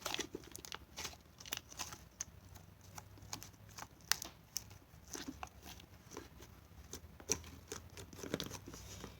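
Hands kneading and stretching a glitter-filled putty slime, giving irregular small sticky clicks and crackles.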